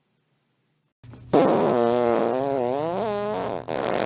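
Silence for about a second, then a long drawn-out fart whose pitch wavers up and down, breaking off briefly near the end before a second, rougher fart starts.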